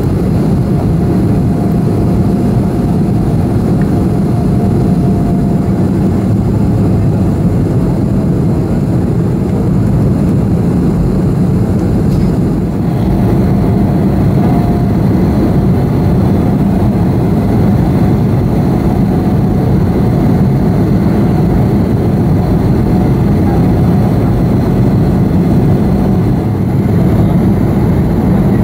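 Steady cabin roar of an Antonov An-158 in flight, from its wing-mounted Ivchenko-Progress D-436-148 turbofan engines and the rushing air. A faint wavering whine sits above the roar.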